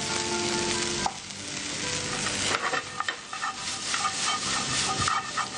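Chopped vegetables sizzling in a little hot oil as they are stir-fried dry, with no water added. From about halfway in, a spatula scrapes and clinks against the pan in quick strokes over the sizzle.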